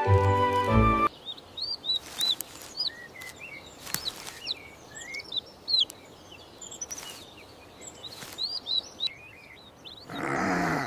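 Music stops about a second in, giving way to small songbirds chirping and twittering over a faint outdoor ambience, with a few soft clicks. Shortly before the end a louder, noisy sound comes in.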